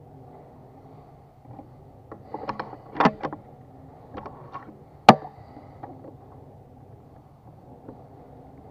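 PCP air rifle being readied and fired: a quick run of metallic clicks from the action about two to three and a half seconds in, then a single sharp shot about five seconds in.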